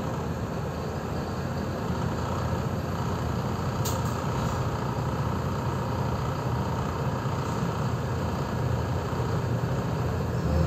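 Inside a city bus crawling in traffic: its engine runs steadily with a low cabin rumble. A brief click sounds about four seconds in.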